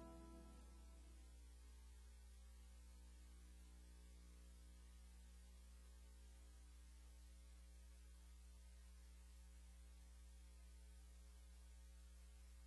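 Near silence: a faint, steady mains hum with light hiss, as the last of the closing music fades out just at the start.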